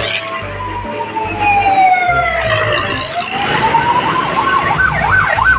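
Siren sounding: one long wail that falls slowly in pitch for about three seconds, climbs back up, then switches to a fast up-and-down yelp near the end.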